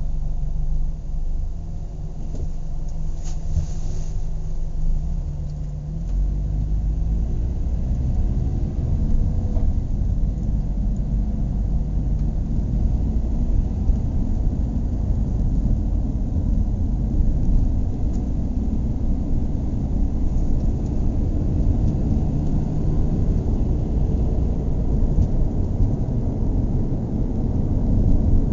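Car engine idling with a steady low hum. About six seconds in, the revs rise and the engine keeps running at a higher, heavier rumble.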